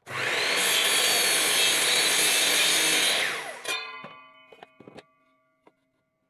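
A Bosch sliding miter saw spins up and cuts through a pine board at a steep angle of about 52 degrees for about three seconds, then winds down. It is followed by a few light knocks and clicks as the blade coasts and the cut piece settles.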